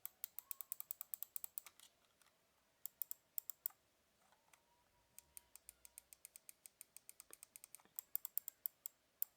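Havit gaming mouse buttons pressed and released over and over in quick runs, each press a crisp plastic click. A softer, more even series of clicks comes in the middle.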